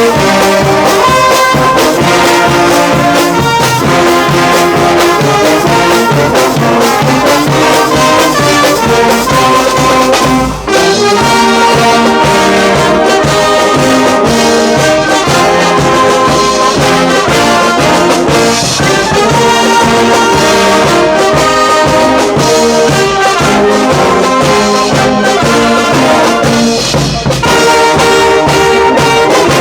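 Brass band playing a tune, with trombones and trumpets carrying the melody, and a brief break in the sound about ten seconds in.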